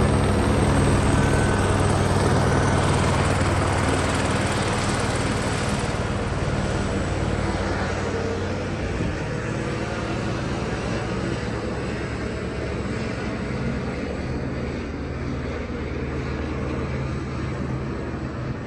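Police helicopter flying overhead: steady rotor and engine noise that slowly fades.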